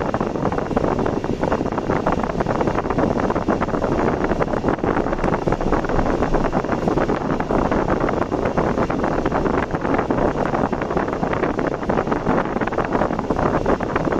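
Steady rushing of wind buffeting the microphone of a camera on a moving vehicle, with no distinct events.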